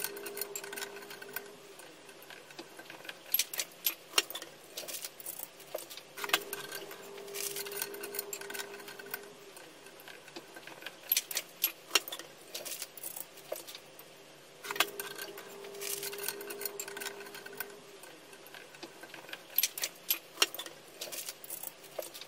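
Looping background track of clock-like ticking. About every eight seconds a held tone sounds for a couple of seconds, followed by a run of sharp ticks, and the cycle repeats three times.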